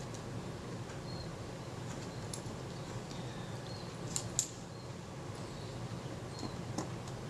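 A few light metal clicks from handling the Synchro-Compur shutter's control rings, the loudest pair about four seconds in, over a steady low room hum.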